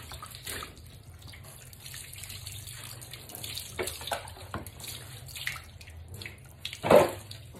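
Water poured from a plastic dipper over a puppy being bathed, splashing onto the floor, with the dipper scooped again from a plastic bucket in between. A short, louder noise comes near the end.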